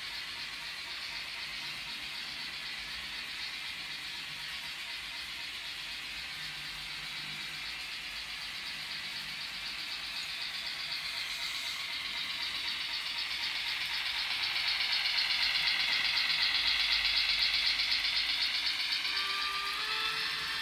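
N gauge model train running on the layout: the locomotive's small motor whirring and the wagons' wheels rattling on the rails. It grows louder as the train approaches, is loudest about fifteen seconds in as it passes close, then eases off, with two steady whining tones coming in near the end.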